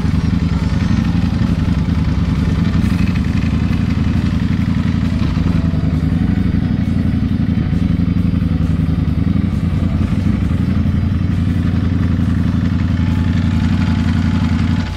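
Motorcycle engine idling steadily at close range, a deep, even low note with no revving. It drops off abruptly at the very end.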